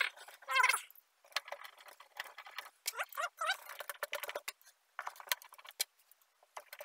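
Screwdriver turning a small screw into the Roland RE-150's Tolex-covered cabinet: a run of light clicks and ticks with short squeaks as the screw bites, the loudest squeaks about half a second in and again around three seconds in.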